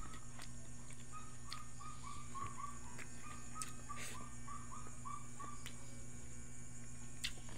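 A night-calling animal chirping: a run of short, evenly repeated chirps, about three a second, that stops about six seconds in. Under it runs a steady low hum, with a few faint clicks.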